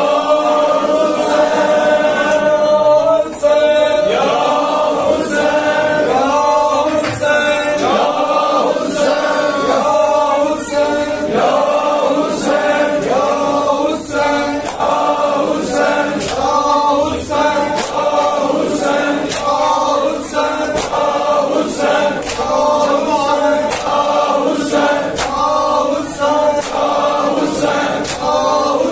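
Chorus of men chanting a noha, a Shia lament for Imam Hassan, in unison without instruments. Sharp slaps of hands on bare chests (matam) keep a steady beat of about one a second.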